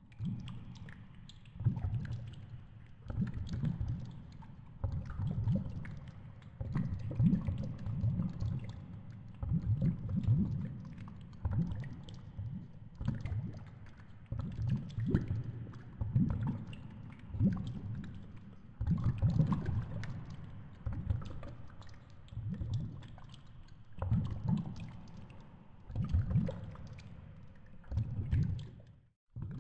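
Underwater noise picked up by a GoPro in its housing on a fishing rig at depth: a low rumble of moving water that swells and fades every second or two, with scattered faint clicks.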